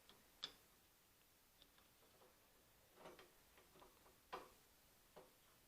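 Faint, scattered clicks and light taps of small metal carburetor parts being handled: the needle valve spring being fitted into a 1969 Rokon carburetor body.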